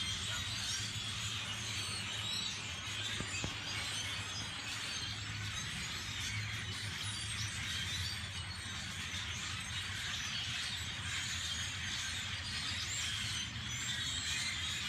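A large flock of birds chattering all at once: a dense, continuous din of overlapping high chirps and squeaks.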